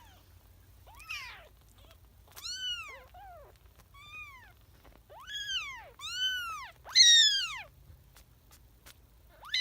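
Two-week-old kittens crying with high-pitched meows, about seven cries that each rise and then fall in pitch; the loudest comes near the end. These are neonatal kittens' distress calls for their absent mother.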